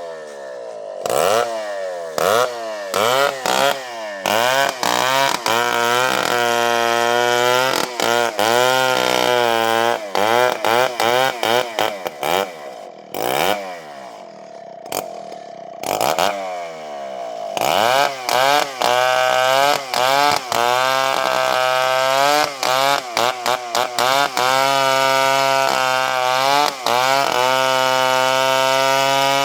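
Chainsaw cutting a coconut palm trunk. The engine is blipped up and down in short revs, then held at high revs for several seconds at a time, twice: once about six seconds in, and again for the last ten seconds or so.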